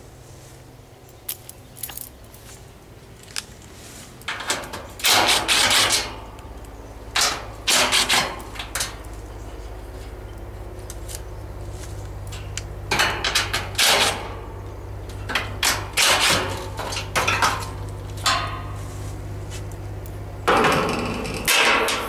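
A cordless drill runs in about five short bursts, driving the screws out of the top fan grille of a central air-conditioner condenser, over a steady low hum.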